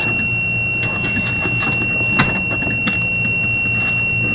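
Multimeter continuity beeper sounding one steady, unbroken high tone, which shows that the melted power and ground wires are still shorted together. A few short clicks and scrapes from handling the wires come over it.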